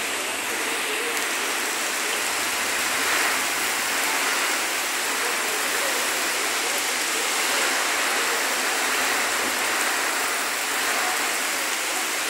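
Heavy rain pouring steadily onto a waterlogged street, an even, unbroken hiss of water.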